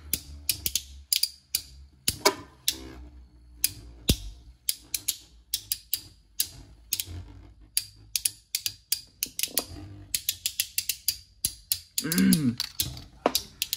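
Two metal-wheeled Beyblades, Fang Leone 130W2D and Proto Nemesis, spinning in a plastic stadium and clashing, giving rapid, irregular sharp clicks and clatters. Near the end a louder wavering whir sounds as they grind against each other.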